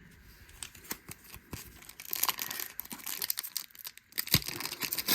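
Crinkling and tearing of a baseball card pack's wrapper, with light clicks of cards being handled. It gets denser and louder from about two seconds in.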